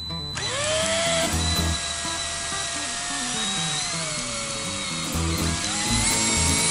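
Power drill winding up just after the start and running, drilling small holes in a plastic headlight bezel; its pitch sags about four seconds in and picks up again near the end. Background music plays along.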